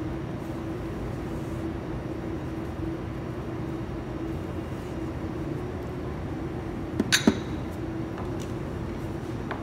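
Steady machine hum with a low held tone. About seven seconds in there are three quick sharp knocks as a kitchen knife is set down on a plastic cutting board.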